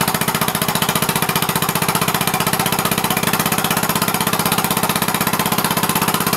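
Two-stroke weed whacker engine converted to run on compressed air, running fast with rapid, even chuffs of air and a loud hiss.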